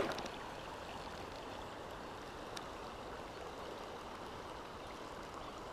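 Steady rush of a shallow river running over a gravel bed, heard up close.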